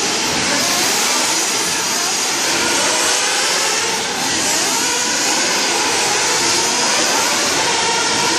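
Several nitro RC buggies racing at once, their small glow-fuel engines running together in overlapping high-pitched whines that rise and fall as the cars accelerate and lift off.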